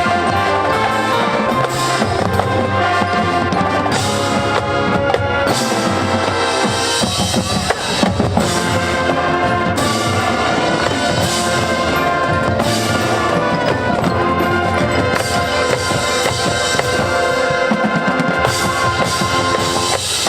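High school marching band playing at full volume: brass carrying the tune over drumline and bass drums.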